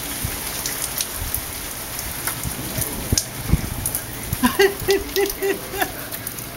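Steady rain falling on surfaces, with scattered sharp drips. A little past halfway an animal gives a quick run of five short pitched calls.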